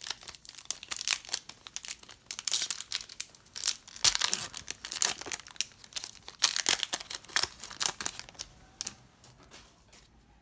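Crinkly plastic wrapper of a Donruss trading card pack being torn open and scrunched, with dense crackling rustles for about nine seconds before it goes quiet near the end.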